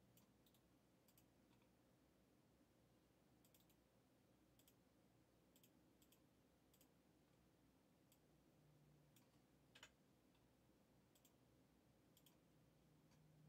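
Near silence with a string of faint computer mouse clicks, many in quick pairs, one a little louder about two-thirds of the way through.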